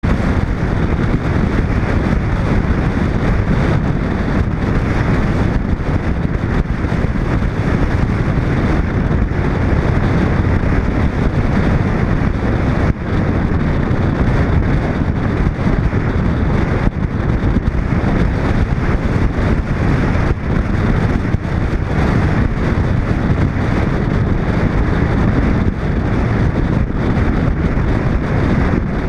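Steady rush of wind and road noise from a moving 1941 Chevrolet, heard from a camera mounted on its side, with wind buffeting the microphone.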